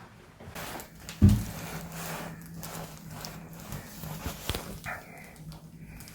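A chiropractic adjustment thrust landing as one heavy thud on the treatment table about a second in, followed by a few lighter clicks and knocks and a low steady hum.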